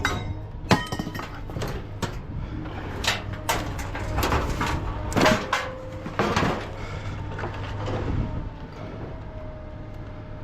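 Irregular clanks and sharp knocks of scrap metal being struck and worked by hand, over a steady low hum. The strikes thin out over the last couple of seconds.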